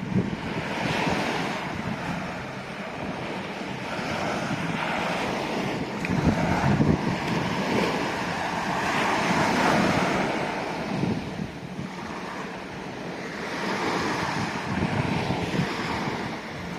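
Surf washing on a beach, its rushing noise swelling and fading every few seconds, with wind buffeting the microphone.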